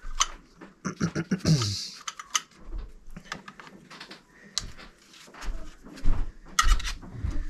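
Screwdriver clicking and scraping on the terminal screws of an old triple aquastat relay as its wires are loosened, with irregular small taps and a few low knocks.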